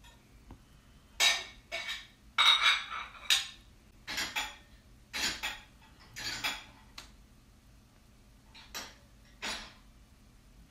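A series of short, irregular clinks and rattles, about a dozen over ten seconds, some with a brief ring.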